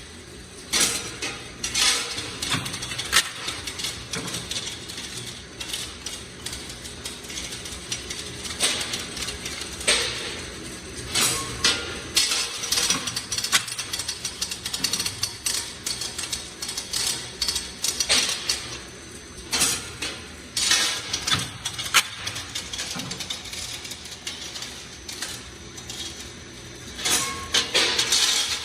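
Welding-electrode packaging machinery running: a steady mechanical hum with frequent, irregular clicks and knocks as the rods and machine parts clatter.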